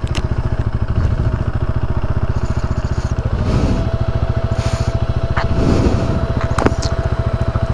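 Motorcycle engine idling steadily with rapid even firing pulses. A thin steady whine joins about three seconds in, and a few light clicks sound over it.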